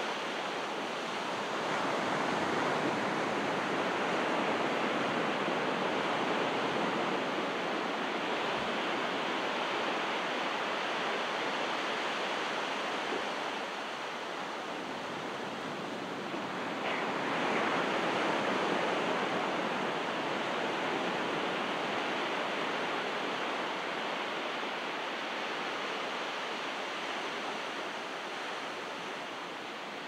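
Calm ocean waves breaking and washing up a rocky beach, a steady surf hiss that swells louder about two seconds in and again around seventeen seconds, easing between and toward the end.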